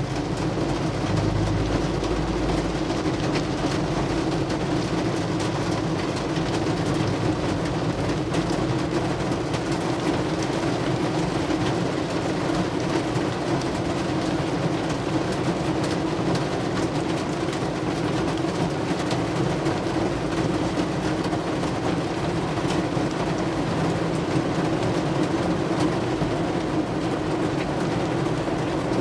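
Heavy rain pouring down steadily: a constant rushing hiss thick with fine drop ticks.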